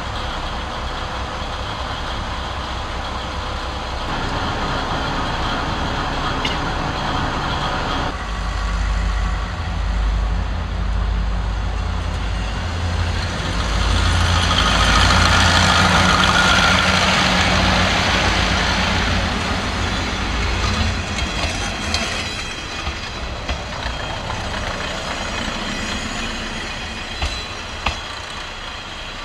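KiHa 58 diesel railcar's DMH17 diesel engines idling, then throttling up about eight seconds in as the train pulls away, with a heavy low rumble. The sound is loudest around the middle and fades as the train draws off, with a few short clicks near the end.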